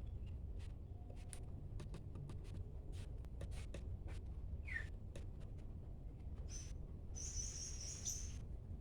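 Cucak ranting calling: scattered sharp chips and ticks, a short falling whistle near the middle, and a buzzy high trill near the end, over a steady low background rumble.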